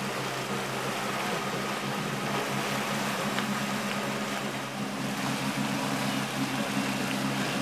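Boat engines running steadily at low speed, a low hum under a steady rushing noise.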